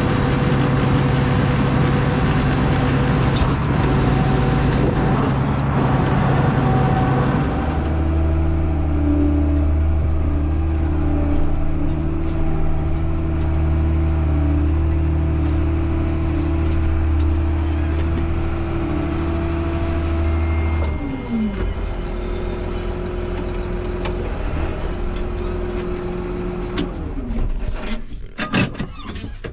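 Farm tractor engine running as it drives the feed mixer wagon through the muddy cattle lot. About eight seconds in the sound changes to a heavier, deeper drone, which stops about twenty seconds in. The engine slows near the end, and a few knocks follow.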